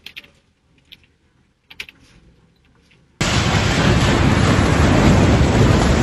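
A few faint clicks, then about three seconds in a sudden loud, steady rumble as a multi-storey building collapses in a cloud of dust after an earthquake.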